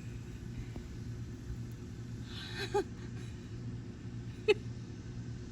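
Air conditioner running with a steady low hum. Twice, about halfway and near the end, a short soft voice sound breaks in, the second one sharper and louder.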